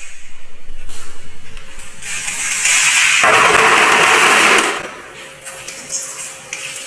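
Live freshwater snails rattling in a steel colander, then tipped into a plastic tub of water in a sink: a loud rushing clatter from about two seconds in that ends before the five-second mark, followed by quieter splashing.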